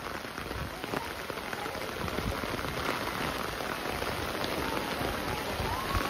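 Steady heavy rain falling on the ground and surrounding surfaces, a continuous even hiss.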